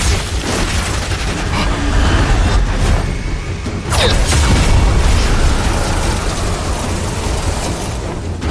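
Battle sound effects for a magical fight: continuous low rumbling and booms with rushing energy blasts. A sharp hit comes at the very start and another strike about four seconds in.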